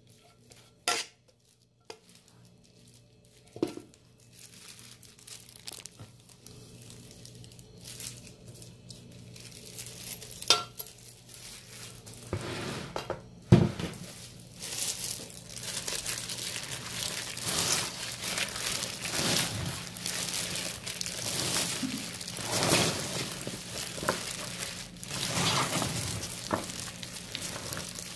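A spoon scrapes thick red chili seasoning paste and taps against a stainless steel bowl a few times. From about twelve seconds in comes a steady, wet rustle as jjokpa green onions are tossed and rubbed with the paste.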